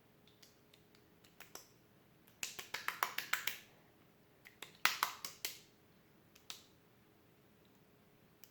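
Wet homemade slime squelching and crackling as it is squeezed and worked in the hands: two bursts of rapid wet clicks, about two and a half and five seconds in, with a few single clicks between.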